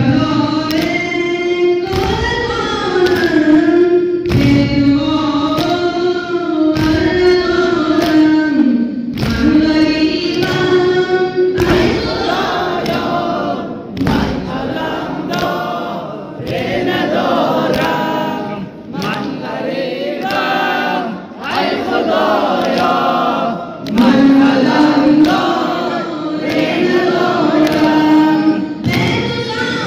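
An Afghan nawha, a Shia mourning lament, sung by a group of voices in unison with a long held, wavering melody. A heavy thud marks the beat about every two seconds.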